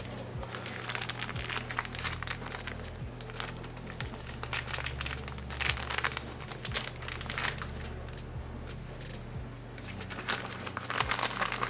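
A spoon scraping and tapping spice powder out of a plastic cup: irregular small clicks and rustling, over a low steady hum.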